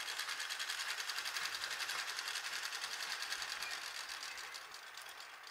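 Neelam sewing machine stitching a seam, a fast, even clatter of the needle that fades out near the end as the stitching stops.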